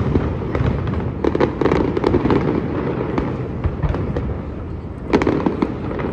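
Fireworks display going off: a steady run of overlapping booms and crackles over a continuous rumble, with a denser cluster of bangs about a second in and another sharp burst near the end.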